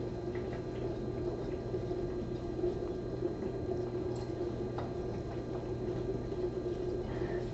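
Steady low hum of background room noise, with a few faint scattered clicks.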